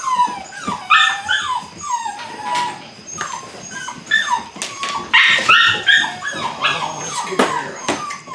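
Belgian Malinois puppies yipping and whining in short, high-pitched cries, one after another, with a few sharp clicks in between.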